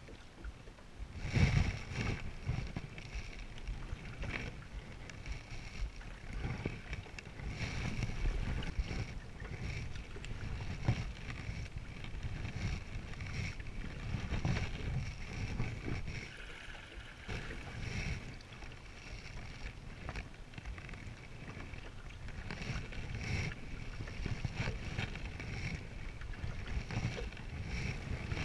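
Paddling a Selway Fisher Wren canoe: paddle strokes dipping and pulling through the water every couple of seconds, with water splashing and lapping. Low rumbles of wind on the microphone come and go.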